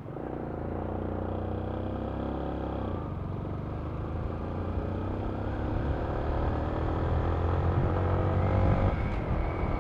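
Yamaha Sniper 155's single-cylinder engine running under acceleration, rising in pitch, dropping about three seconds in and again near the end as it shifts up, with a low rumble and road noise under it.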